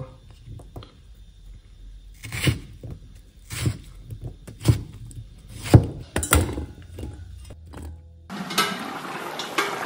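Chinese cleaver chopping potato into small dice on a wooden chopping board: separate knocks about once a second. Near the end a steady hiss takes over.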